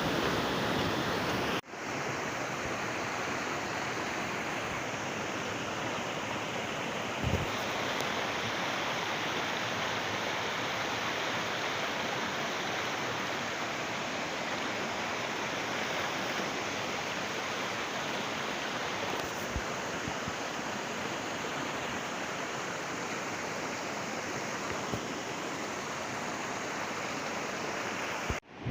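Flowing stream water rushing steadily, briefly cutting out about two seconds in.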